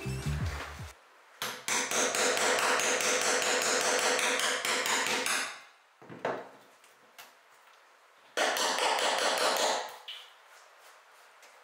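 Rapid light hammer taps on a wooden-handled tool held against a plywood subfloor, knocking down raised screw-hole bumps. The taps come in a run of about four seconds, then a single tap, then a shorter run about eight and a half seconds in.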